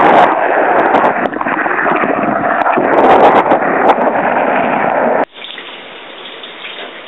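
Shower spray running loud and close, water splashing onto and around the microphone. About five seconds in it cuts off abruptly to a much quieter steady hiss.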